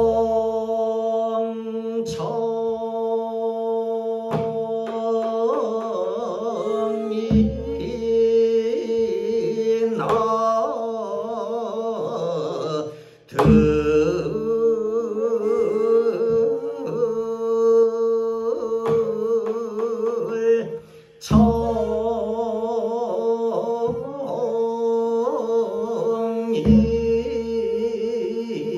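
Slow Korean sijo singing: a voice holding long sustained notes with wavering vibrato, accompanied by a daegeum bamboo flute and a janggu hourglass drum struck in a few widely spaced deep beats.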